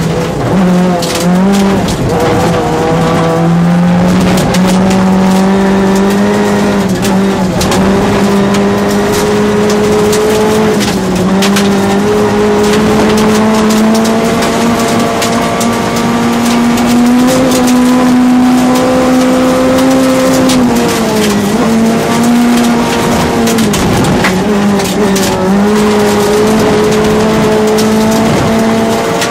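Rally car engine running hard, heard from inside the cabin, its pitch held nearly steady and creeping slowly upward, with brief dips near the start and twice near the end. Gravel and stones clatter against the car throughout.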